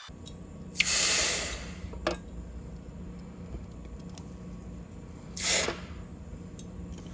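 Two bursts of hissing, the first about a second long and the second about half a second, with a sharp click between them over a low steady hum.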